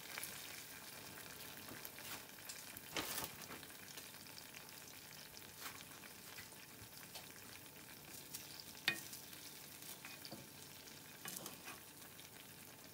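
Vegetable tempura in a watery, water-mixed batter frying in a small pan of oil: a quiet, steady sizzle. A few sharp clicks of chopsticks against the pan as the pieces are turned, the loudest about nine seconds in.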